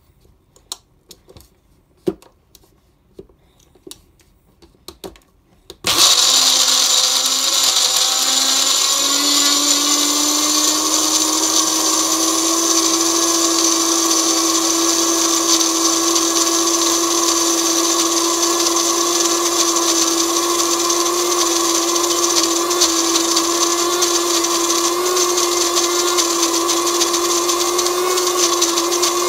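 Small personal blender grinding peanuts in milk: a few light clicks and taps at first, then about six seconds in the motor starts abruptly and runs loud and steady, its pitch rising a little over the first few seconds and then holding.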